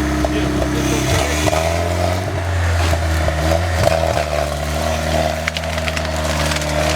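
GAZ-69's freshly rebuilt engine running under load off-road, its pitch shifting about a second in and then holding steady, with scattered cracks and crunches from the ground under the wheels.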